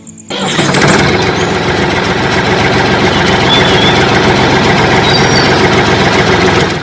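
A loud motor-driven machine running steadily. It starts suddenly just after the beginning and cuts off abruptly at the end.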